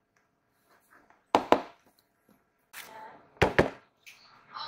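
Sharp taps and knocks in two quick pairs about two seconds apart, from cardboard motherboard boxes being handled close to the microphone.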